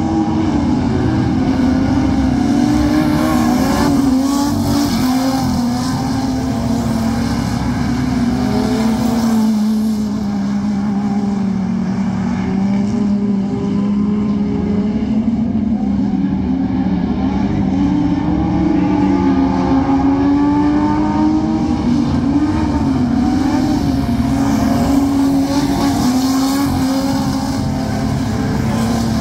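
Several dirt-track speedway cars' engines running hard together, their pitch rising and falling over and over as they accelerate down the straights and lift off into the turns.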